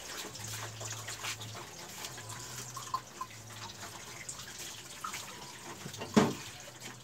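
Lidded pot of clam soup simmering on a wood fire: soft bubbling with many small pops and crackles, and one brief louder sound about six seconds in.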